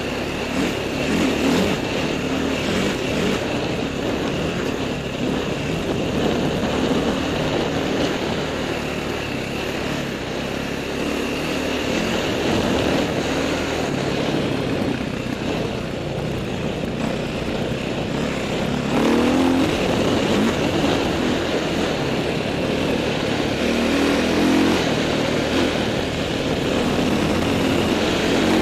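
Dirt bike engine running steadily under way, its note rising and falling with the throttle and climbing more strongly about two-thirds of the way through and again near the end.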